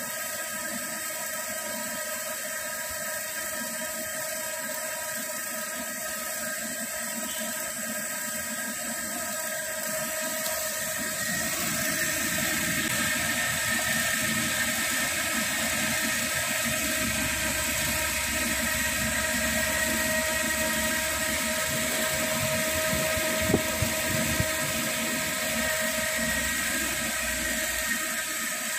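Cylindrical grinding machine running on a steel spindle shaft: a steady high whine over a hiss, growing louder about a third of the way in, with a few sharp ticks later on.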